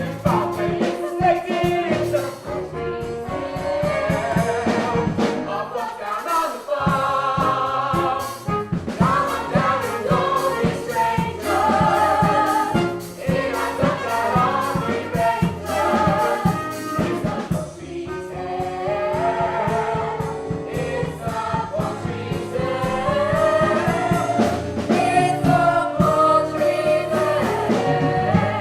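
Stage-musical ensemble singing together in chorus over band accompaniment with a steady percussive beat.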